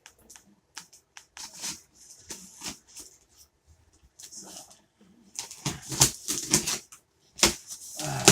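Scratching, rustling and tapping of a cardboard shipping box being handled and opened, with scattered strokes that grow busier and louder over the last three seconds.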